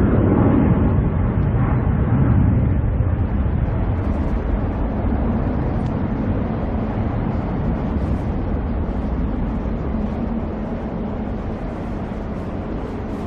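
Jet engine roar of an Airbus A321-231's IAE V2500 turbofans as the airliner climbs away after takeoff: a deep, noisy rumble that slowly fades.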